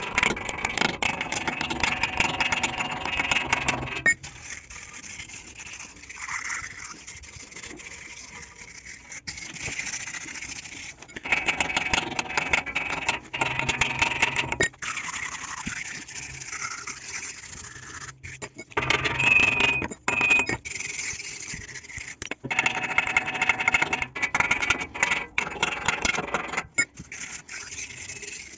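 Stick arc welding on a steel frame: four runs of arc crackle and buzz, each a few seconds long and each starting and stopping abruptly, with quieter clicks and clinks between them.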